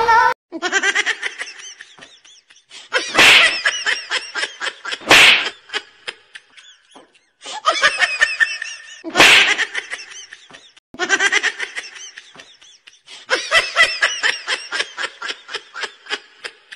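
People laughing in rapid, repeated bursts, in several separate stretches broken by short gaps, with a few sharp louder sounds among them.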